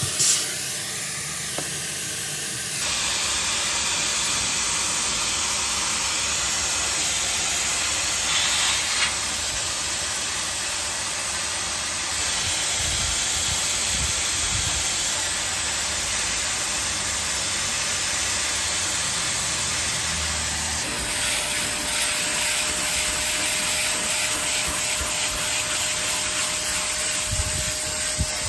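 Steady, loud hissing of steam or spray. It shifts in tone about three seconds in and again later, and a faint steady hum joins in near the end.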